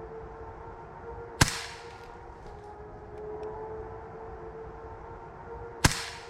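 Two shots from an Umarex Notos PCP air rifle fired as a pistol, each a sharp crack with a short tail, about four and a half seconds apart. A steady drone with a held tone carries on underneath.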